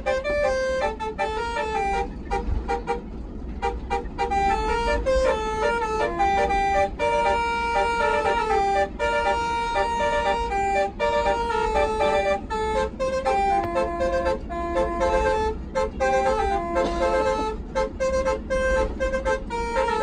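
Tour bus's basuri telolet air horns playing a tune of held, stepped notes, over the low rumble of the bus engine.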